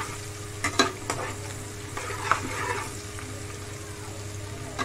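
Sliced onions, curry leaves and green chillies sizzling in hot oil in an aluminium karahi while being stirred with a metal spatula. The spatula clinks and scrapes against the pan a few times, loudest about a second in and again past two seconds.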